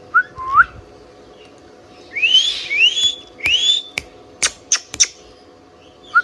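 Indian ringneck parakeet whistling: a short gliding whistle right at the start, then three rising whistled notes about two seconds in, followed by several sharp, very short chirps.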